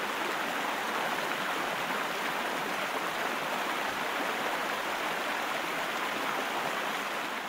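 Steady rushing hiss of a car-wash water spray, the power-wash jets, easing off near the end.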